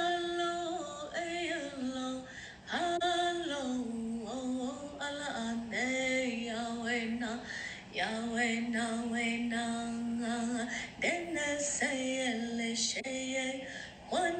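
A woman singing unaccompanied, holding long notes that step between a few pitches, with short pauses for breath.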